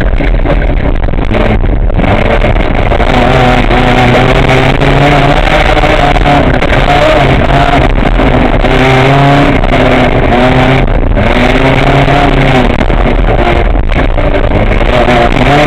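VW Gol N1 rally car's engine heard from inside the cabin, revving hard, its pitch climbing and dropping again and again as the driver shifts gears and lifts off. Tyre and road noise from the dirt stage runs under it.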